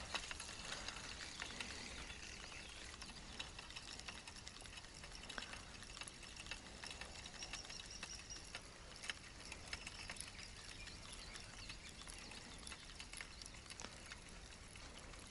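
Faint, scattered small clicks and light rustling from handling a tangled feeder rig, over a quiet background.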